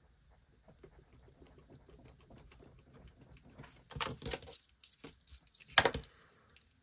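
Cash and paper envelopes handled on a table: soft rustling and light taps, with a few louder knocks about four seconds in and one sharp knock just before six seconds.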